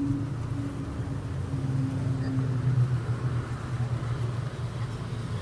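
A motor vehicle running: a low, steady hum, with a higher steady tone over it that fades out between two and three seconds in.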